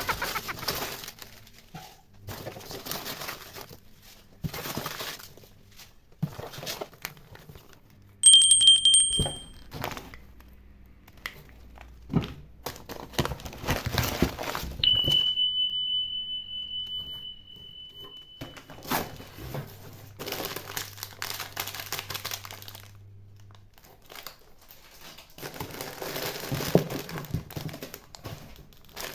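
Boxes and food packaging being handled and opened: plastic and paper crinkling and rustling in irregular spurts, with some tearing. A short bright high ding about 8 seconds in, and a steady high beep-like tone lasting about four seconds near the middle.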